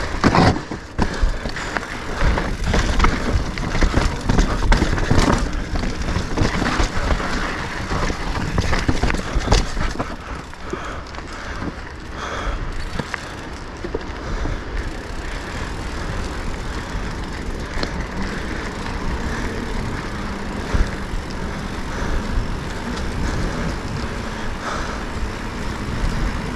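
Mountain bike ridden down a rocky trail: tyres rumbling over rock and dirt, with the bike's frame and chain knocking and rattling. The knocks are dense and loud for the first ten seconds or so, then the ride goes smoother and steadier with occasional knocks.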